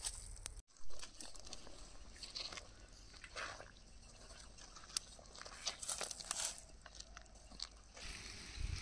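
Scattered crackles and pops from broth boiling in a clay pot over a wood fire, with a wooden stick stirring the pot. The sound cuts out for an instant just after the start, followed by a single louder knock.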